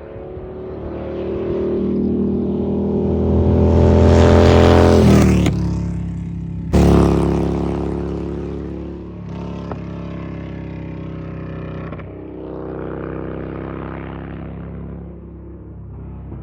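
Harley-Davidson Dyna Street Bob's air-cooled V-twin engine under way, pulling hard and rising in pitch to a peak about five seconds in, easing briefly, then opening up again sharply near seven seconds before settling back; another smaller pull comes later.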